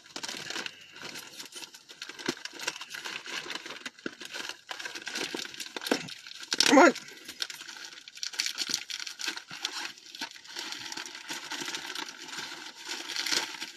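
Packaging being crinkled and torn open by hand, a steady run of irregular crackles and rustles.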